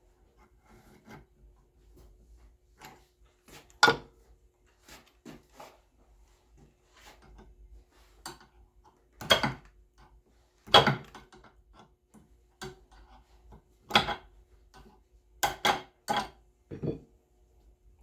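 Scattered knocks, clinks and clicks of hand tools and metal treadmill-roller parts being handled on a workbench, with about seven sharper knocks, under a faint steady hum.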